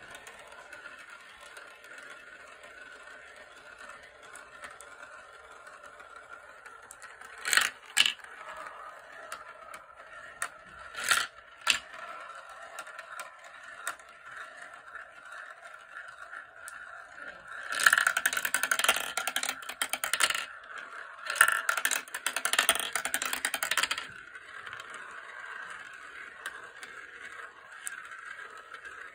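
Cat's eye glass marbles rolling through a clear plastic marble run: a steady rolling whir through the tracks and funnel bowls, a few sharp clacks as marbles drop between pieces, and two long loud stretches of rattling clatter in the second half.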